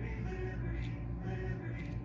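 Background music with steady held tones.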